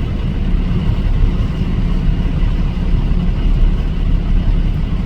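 A motor vehicle engine running steadily, a low, even rumble with no change in pace.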